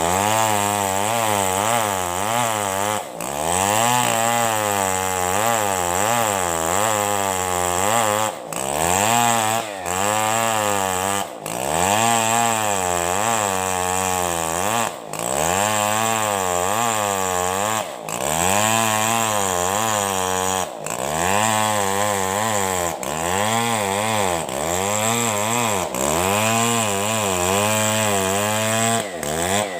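Two-stroke chainsaw ripping lengthwise along a coconut trunk under load. Its engine note wavers up and down continually as the chain bites, with brief dips every few seconds.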